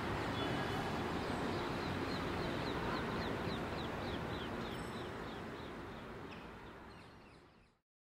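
Outdoor park ambience: steady low background noise, with a bird calling a rapid run of short falling chirps, about three a second, through the middle. It all fades out near the end.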